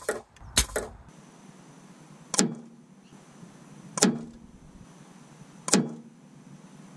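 Three sharp hits about a second and a half apart, each with a short low ring, as air rifle slugs strike the target's lead-lined pellet trap; a few quicker clicks come at the very start.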